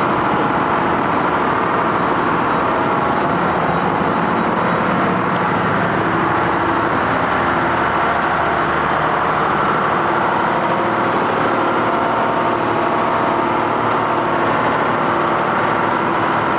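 Loud, steady drone of heavy machinery running without change.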